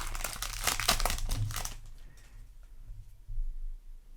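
Crinkling of a foil trading-card booster pack wrapper being handled and torn open, busy for about the first two seconds and then dying down to faint rustles.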